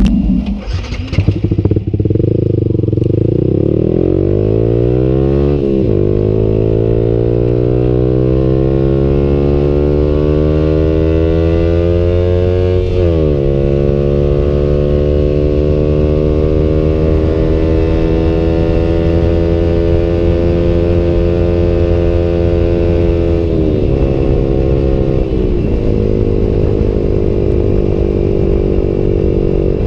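Yamaha YZF-R15 single-cylinder engine running through a Tridente F21 full-system exhaust, pulling hard with the pitch climbing, then dropping sharply at an upshift about 6 s in and again about 13 s in. After that it pulls steadily higher and settles into a cruise, with the throttle easing briefly twice near the end.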